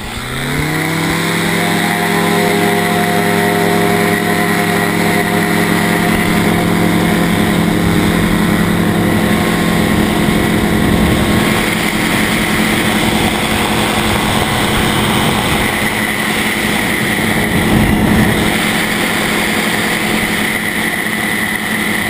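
Motor hang glider (trike) engine throttled up to full power for takeoff: its pitch rises over about the first second, then it holds a steady, loud drone of engine and propeller through the takeoff run and climb.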